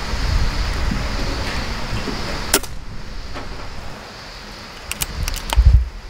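A single sharp report from a legal-limit (sub-12 ft-lb) pre-charged air rifle, an Air Arms Ultimate Sporter, fired at a rat about two and a half seconds in, over a steady hiss. Near the end come a few light clicks and a dull knock.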